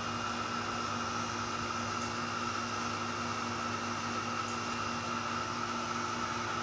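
A steady hum with a few constant tones over a hiss, unchanging throughout.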